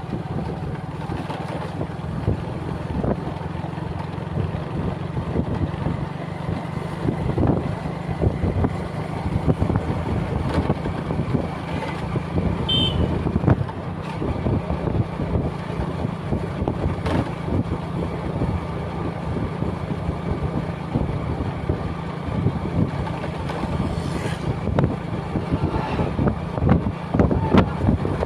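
A motor vehicle running steadily, a constant low rumble with road noise and scattered short knocks.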